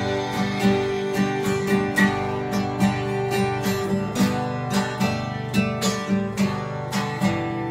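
Two acoustic guitars strumming chords together in a steady country rhythm, about two to three strokes a second.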